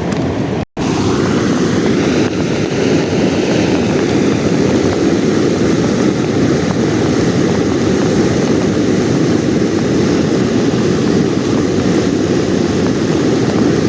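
Small boat motor running steadily as a loud, even drone, with one very brief cut to silence about a second in.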